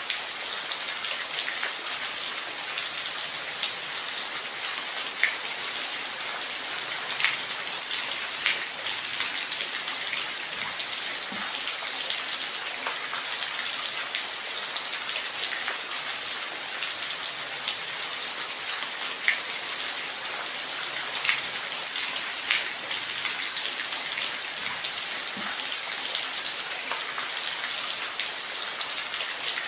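Steady rain falling, a dense hiss with individual drops ticking sharply here and there.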